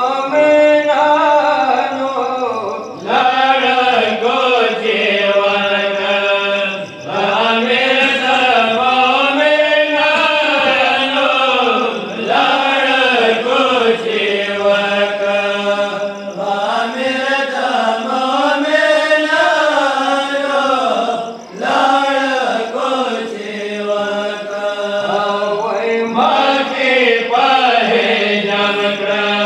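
A reciter's voice chanting a Pashto noha, a Shia mourning lament, in long melodic phrases with short breaks every four to five seconds, over a steady low drone.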